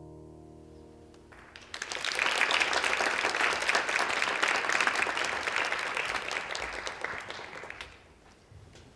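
The music's last held chord fades out, then an audience breaks into applause about a second and a half in, which dies away near the end.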